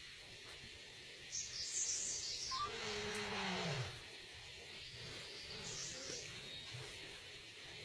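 An animal's single low call, a little over a second long, sliding down in pitch about two and a half seconds in. Short high bird chirps come just before it and again near the end.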